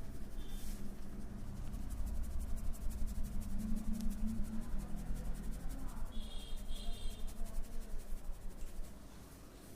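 Hands tapping rapidly and evenly on the body in percussive massage strokes, about six taps a second, starting about two seconds in and easing off near the end.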